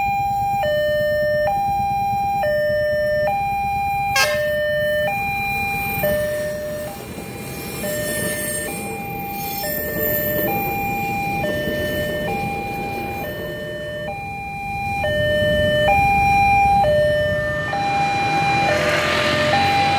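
Railway level-crossing warning alarm sounding a two-tone electronic signal, alternating high and low about once a second, which warns that the barrier is down for a train. A train's rumble runs under it through the middle of the stretch as the train passes the crossing.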